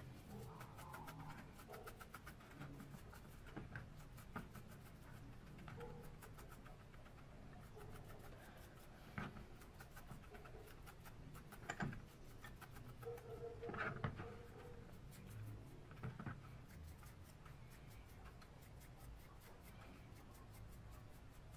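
A small brush scrubbing the oily metal shaft of a Hasler Bern railway speedometer: rapid, quiet scratching strokes of bristles on metal, with a few louder knocks near the middle.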